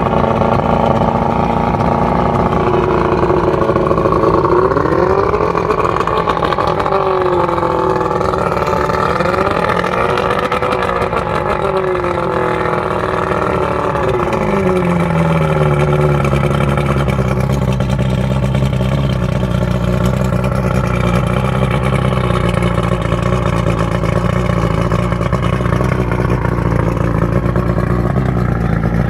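Evinrude 115 two-stroke V4 outboard running out of the water on a garden-hose flush attachment. It is revved up and down twice, then drops to a steady, lower idle about halfway through.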